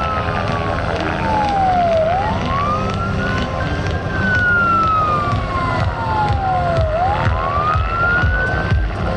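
Siren of a Cal Fire Sikorsky S-70i Firehawk helicopter wailing. Its pitch slides slowly down and then sweeps quickly back up, twice, over the low rumble of the helicopter's rotors.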